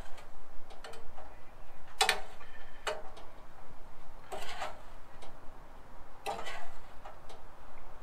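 A spoon scraping and clinking against a pan as buttery brown-sugar sauce is spooned over sliced bananas: a few short scrapes about a second or two apart, with lighter ticks between.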